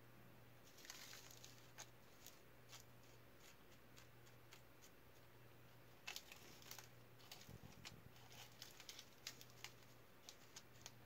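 Faint scattered clicks and crinkles as small stones are pushed by hand into a wax-paper mold, the paper rustling and pebbles ticking together, over a low steady hum.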